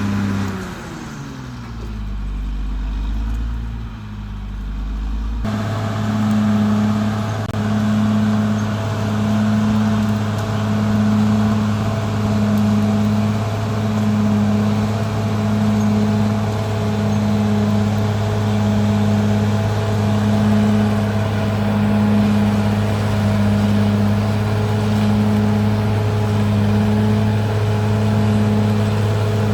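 Caterpillar D6R XL bulldozer's diesel engine running. In the first seconds its pitch falls as the revs drop and a deep rumble comes in; after an abrupt change about five seconds in, it holds a steady working note that swells regularly about every second and a half.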